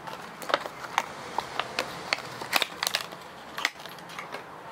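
Clear plastic lure box being opened and handled: irregular clicks and crackles of thin plastic.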